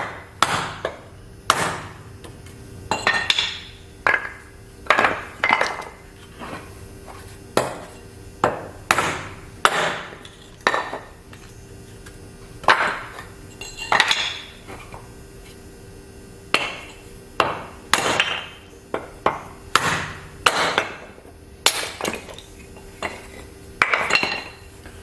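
Rusty, dull old Craftsman hatchet chopping scrap pine 2x4 offcuts into kindling: sharp strikes of the blade into the wood, sometimes in quick pairs, about one or two a second with short pauses.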